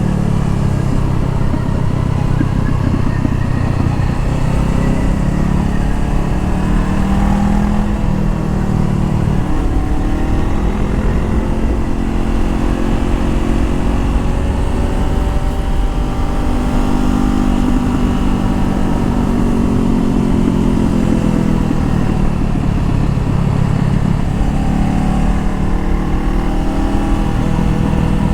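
Honda CBR500R's parallel-twin engine under way, its note rising and falling over and over as the rider accelerates and eases off.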